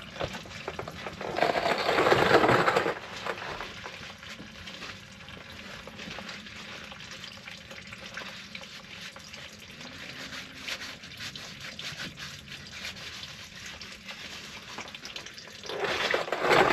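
Diesel fuel trickling steadily in a thin stream from the opened drain of a Ford 6.7L Powerstroke's fuel filter/water separator housing into a drain pan. It is louder for about a second and a half, about two seconds in, and grows louder again near the end.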